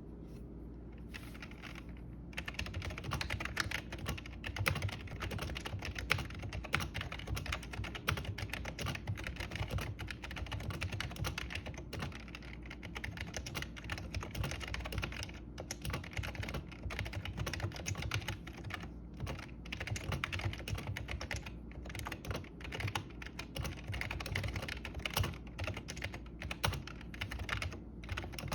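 Continuous typing on a Dell QuietKey membrane keyboard: a fast, uneven patter of keystrokes that starts about two seconds in, with a few brief pauses.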